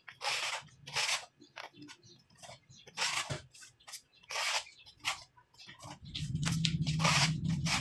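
Hand plastering tool scraping wet putty (skim coat) onto a concrete wall edge in short strokes, each a brief rasp. About six seconds in, a steady low hum joins in.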